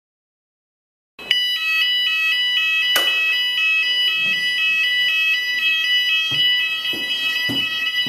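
Hyfire fire alarm sounders going off, set off by testing a ceiling smoke detector with a test pole: a loud electronic alarm tone with a fast pulsing warble, about three pulses a second, starting suddenly about a second in.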